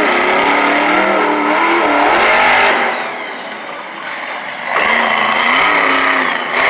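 Monster truck's supercharged V8 revving hard, its note rising and wavering, then falling away about three seconds in before coming back loud near the end, as the truck goes over onto its roof.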